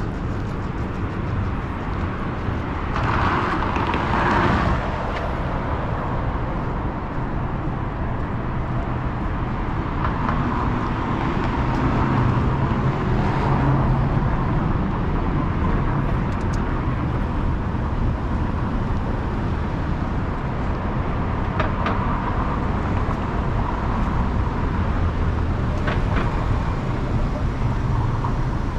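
City street ambience: a steady wash of traffic noise with vehicles passing, a little louder at a few moments.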